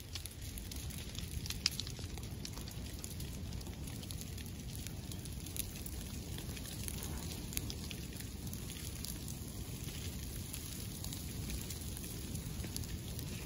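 Low backing fire burning through grass and pine litter: scattered sharp crackles and pops over a steady low rush.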